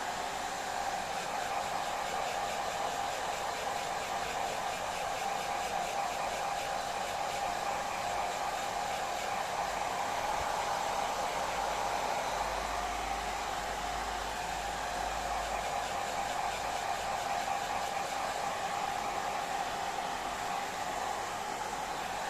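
Handheld hair dryer running steadily: an even rush of air with a steady hum-like tone in it, and a low rumble for a few seconds about halfway through.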